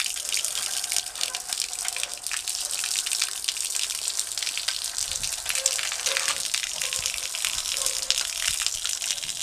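Water pouring down from the back of a truck and splashing onto wet asphalt: a steady gush with a crackle of many small splashes.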